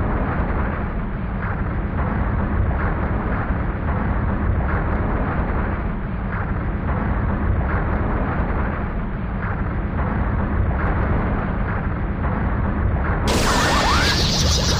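Dragon Ball Z-style energy sound effect: a steady, loud low rumble with a noisy hiss above it, then about a second before the end a sudden bright, hissing burst with a rising whistle cuts in.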